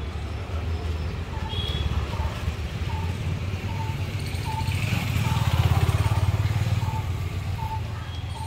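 Steady low engine rumble that swells louder around the middle and eases off again, with a short high beep repeating about every two-thirds of a second, like a car's door-open warning chime.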